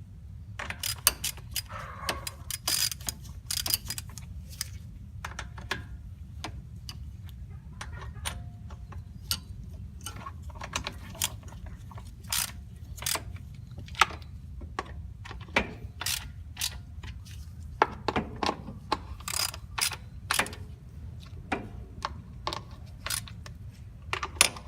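Socket ratchet clicking in irregular runs as bolts are run down and tightened, with occasional sharper metallic knocks. A steady low hum sits underneath.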